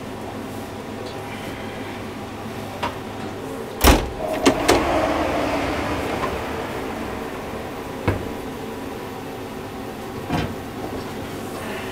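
Smoker oven cabinet with a steady fan hum. About four seconds in comes one loud bang of its metal door, followed by two quick clicks and a short hiss. Two lighter knocks follow later.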